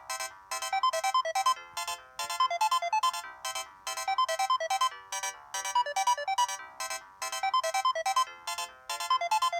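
Samsung SGH-C100 mobile phone playing one of its preloaded ringtones: a synthesized melody of quick, clipped notes with no bass, its short phrase repeating about every two seconds.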